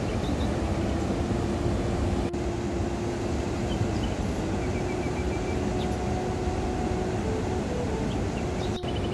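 Steady, loud rushing noise of water, such as heavy rain or a swollen stream, with a few faint high chirps above it.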